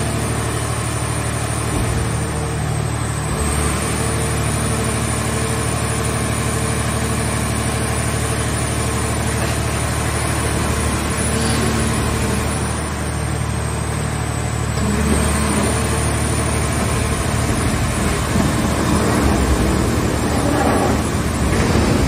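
Hydraulic power unit of a scrap car-shell baler running with a steady low hum while its folding lids close and press the car body. The sound grows louder and rougher over the last third as the scrap is compressed.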